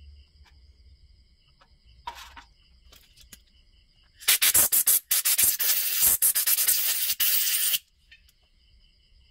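Compressed air from a blow gun hissing through a chainsaw carburetor to clear its passages, in two blasts: a short one, then a longer one of about three seconds that cuts off suddenly.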